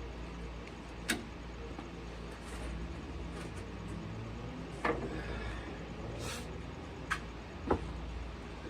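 Four sharp knocks over a steady low hum: one about a second in, one about five seconds in, and two close together near the end.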